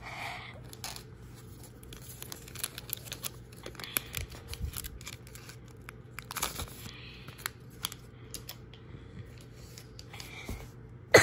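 A Topps trading-card pack being torn open by hand: a crinkling, tearing rustle of the wrapper a little past the middle, among light clicks and scratches of cards being handled.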